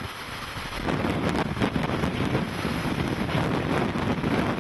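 Hurricane Gustav's gusty wind rushing and buffeting the microphone, growing louder about a second in.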